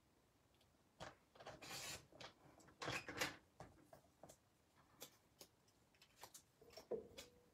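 Paper trimmer cutting cardstock: a few short scraping passes of the cutting head along its rail, followed by light clicks and rustles as the trimmed paper piece is handled.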